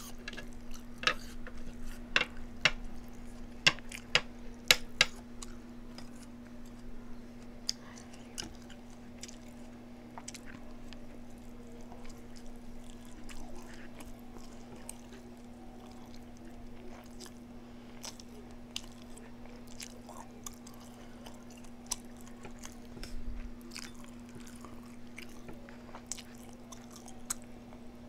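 Close-up eating sounds: crisp, crunchy bites and chewing, with a run of sharp crunches in the first few seconds, then softer chewing. A steady low hum runs underneath.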